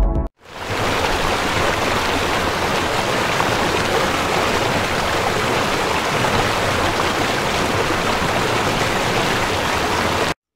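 Rushing river water, a steady hiss of rapids that fades in just after the last beat of electronic music and cuts off suddenly near the end.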